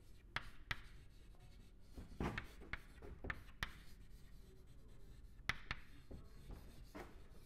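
Chalk writing on a chalkboard, faint: irregular sharp taps and short scratches as the chalk strokes out letters.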